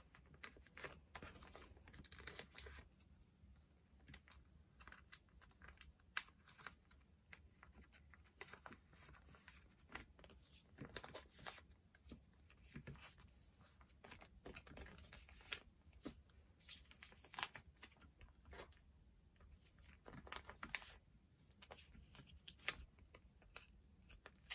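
Faint crinkling and clicking of plastic as photocards are slid in and out of binder sleeve pockets and the page is handled, in many short scattered sounds.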